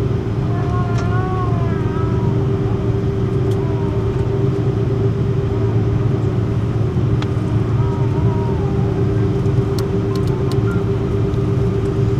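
Steady low rumble and hum from inside a moving vehicle, with faint voices in the background and a few light clicks near the end.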